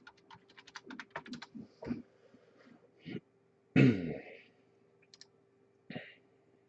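Typing on a computer keyboard: a quick run of keystrokes in the first second and a half, then a few scattered clicks. About four seconds in comes a brief, louder throat or voice sound.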